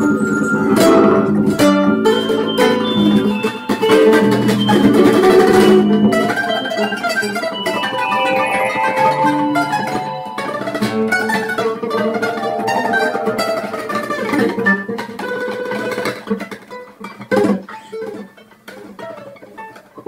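Instrumental music led by a plucked acoustic guitar, growing quieter and sparser, down to a few single notes, in the last few seconds.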